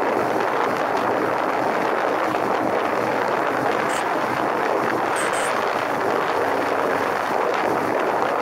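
Steady wind rushing over a helmet-mounted camera's microphone at riding speed, with the motorcycle's engine faint underneath.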